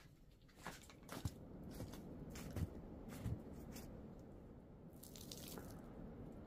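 Irregular crunching and squishing of wet snow, with scattered sharp crackles and three soft thumps in the first half.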